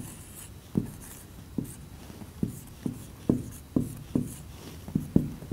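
Marker pen writing numbers on a whiteboard: about ten short, irregular taps and strokes as the tip strikes and drags across the board, with a faint scratchy hiss.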